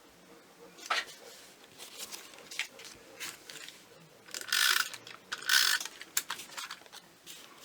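Handheld adhesive tape applicator rasping across cardstock in two short strokes, about four and a half and five and a half seconds in, amid scattered clicks and taps of paper being handled.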